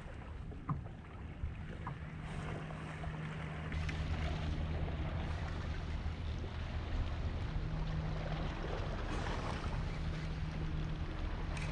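A Torqeedo electric outboard on a fishing kayak runs with a steady low hum that fades in and out, over water and wind noise that grows louder about four seconds in.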